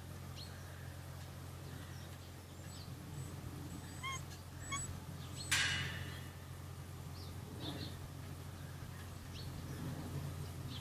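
Rhodesian Ridgeback puppies at play giving a few short, high squeaks and yips, with a sharp rustling thump about halfway through, over a steady low hum.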